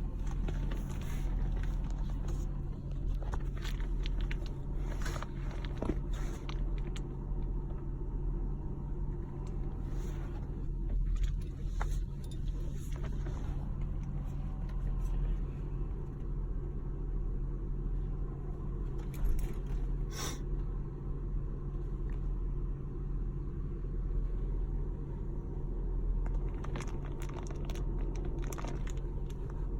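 Car engine idling, heard from inside the cabin as a steady low hum, with a few brief clicks and rustles about 5 and 20 seconds in.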